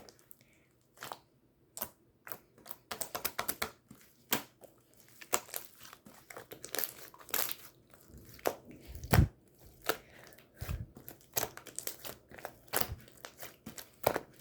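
Pink two-layer slime being handled, giving irregular crinkly, crackling pops and clicks, with two deeper squishy thumps about nine and eleven seconds in.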